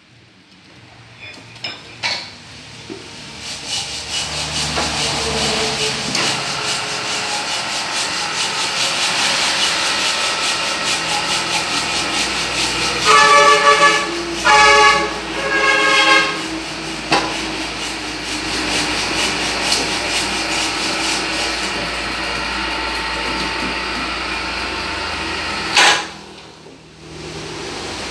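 Continuous rubbing and scraping from hand work on an electric motor's windings. About halfway through come three short, honk-like pitched tones, and the scraping stops suddenly a couple of seconds before the end.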